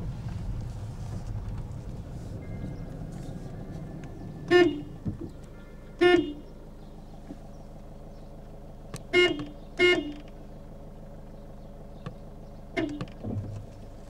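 Car horn honking in five short toots, two of them close together and the last one quieter, over the low hum of the car's engine as it rolls slowly, heard from inside the car.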